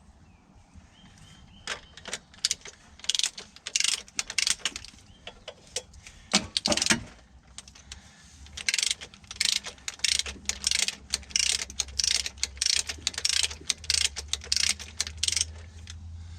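Socket ratchet clicking in quick runs of strokes as a bolt is tightened on the engine; the bolt strips out. A low steady hum comes in about two-thirds of the way through.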